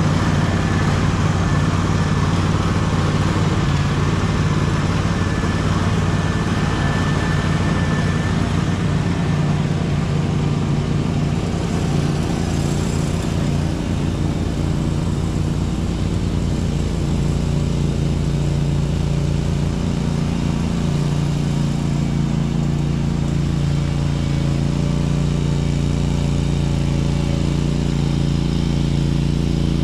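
Small gasoline engine of a piece of lawn equipment running steadily at a constant speed.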